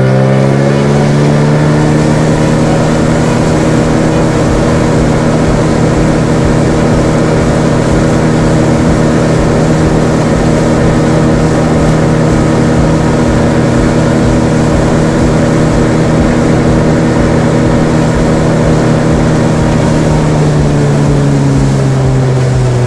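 Motorboat engine running at speed: its pitch climbs at the start, holds steady, then drops as it throttles back near the end. Water and wind rush sound along with it.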